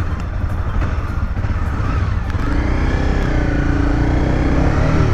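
Honda CBR300R's single-cylinder engine running at low speed as the motorcycle rolls slowly, with a steady low rumble. About halfway through, a wavering tone joins in above it.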